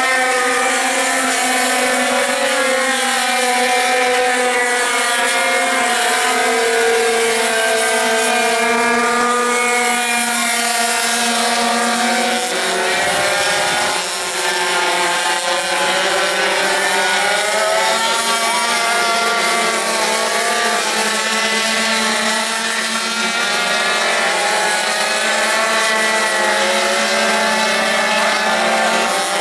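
Several racing pocket bikes' small engines buzzing together, their pitches rising and falling as the riders brake and accelerate through the corners. About halfway through, the sound briefly dips and comes back.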